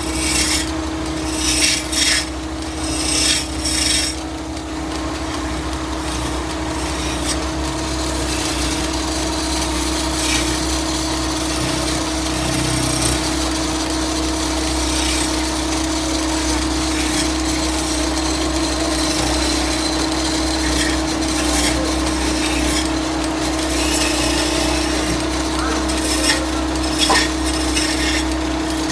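Wooden cot leg being turned on a running wood lathe: a hand-held chisel scrapes and cuts the spinning wood over a steady machine hum. Several louder cutting bursts come in the first few seconds and again near the end.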